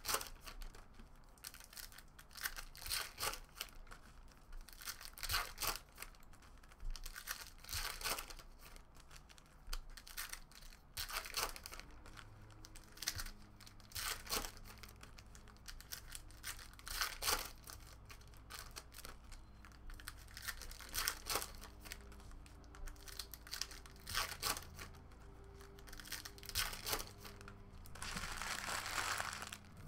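Foil trading-card packs being torn open by hand and the wrappers crinkled, a series of short tearing and crackling sounds every second or two, with a longer stretch of crinkling near the end.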